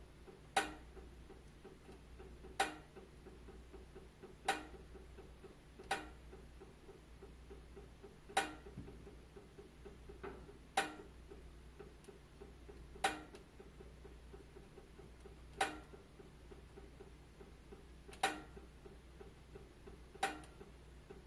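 Wood fire crackling in a fireplace: sharp single pops at irregular intervals, roughly one every two seconds, over a faint steady background.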